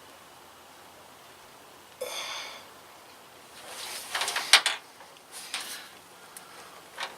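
Filter wrench working a stuck spin-on oil filter loose on a remote filter mount: a short squeak about two seconds in, then scraping and a sharp click around the middle, more scrapes, and another click near the end.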